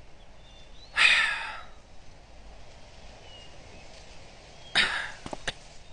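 A person's breathy exhale, like a sigh, about a second in, and another shorter one near the end, followed by a few light clicks.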